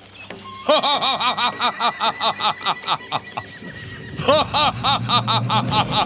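A man laughing loudly in rapid, evenly paced "ha-ha-ha" bursts, about five a second; the laughter breaks off briefly a little past three seconds, then starts again in a second run.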